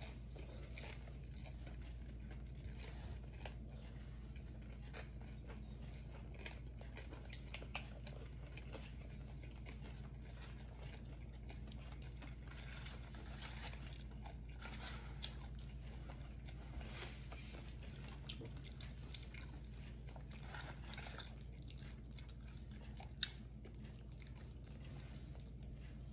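A person chewing and biting food close to the microphone, with many small crunchy clicks and wet mouth sounds scattered throughout, over a low steady hum.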